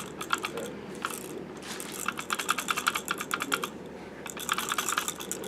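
Rattles in the wheels of an Oball Rattle & Roll toy car, clicking rapidly in a few bursts as the car is moved.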